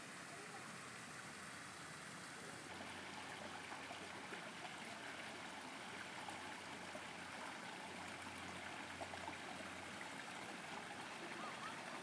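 Running water flowing steadily, a little fuller from about three seconds in.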